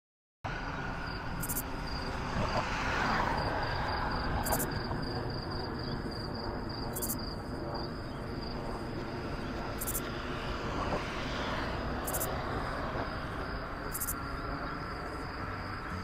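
Outdoor ambience: a steady low rumble of distant traffic, swelling and fading twice, with an insect chirping in a high, rapid, even pulse.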